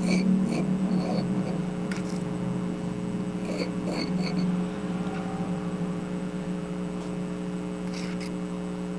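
Steady electrical hum throughout, with a few faint light clicks and taps from the glue work at the table.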